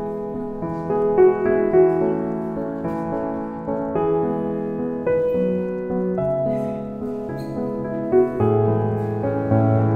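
Background piano music, a melody of single notes moving along at an even pace.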